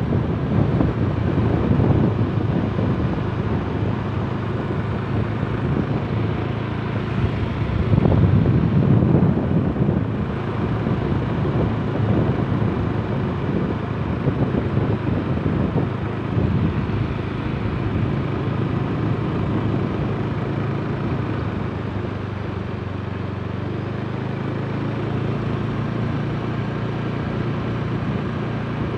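A vehicle running steadily along a road, with its engine hum under tyre and road noise. Wind buffets the microphone in heavier gusts near the start and again about eight to ten seconds in.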